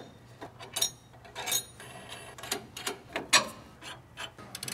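Steel suspension hardware and hand tools being handled: irregular metallic clinks, knocks and scrapes, with a sharper clank a little past three seconds in.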